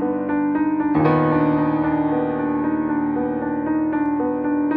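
Background piano music: a repeating pattern of notes over a held low note, with a fuller chord struck about a second in.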